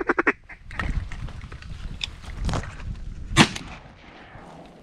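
A single shotgun shot fired at a passing teal, about three and a half seconds in, with a short echo after it. A quick rattle of clicks right at the start.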